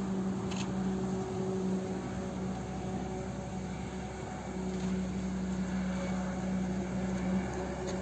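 A steady, low mechanical hum from a motor, holding one pitch with a slight rise and fall in level, over a faint background hiss.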